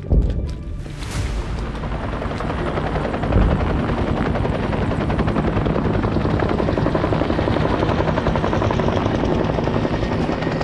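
Helicopter rotor chopping in a fast steady beat, swelling over the first few seconds and then holding steady and loud, after a sharp hit at the very start.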